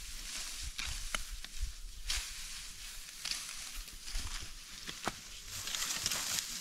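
Dry, ripe wheat stalks rustling and crackling as they are cut with hand sickles and gathered, with a few sharp crackles over a steady rustle, and footsteps on dry stubble.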